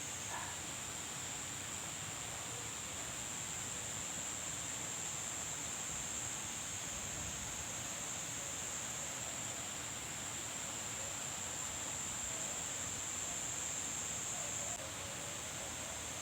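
Steady high-pitched insect chorus with an even hiss beneath it, easing slightly near the end.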